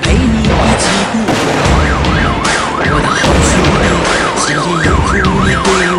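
A warbling siren tone sweeping up and down about twice a second starts a couple of seconds in. It sounds over loud music with low notes, and sharp cracks come about once a second.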